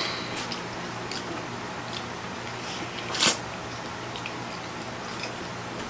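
Close-up mouth sounds of people eating spicy instant noodles: soft chewing and small clicks, with one short, loud slurp of noodles about three seconds in. A faint low hum runs underneath.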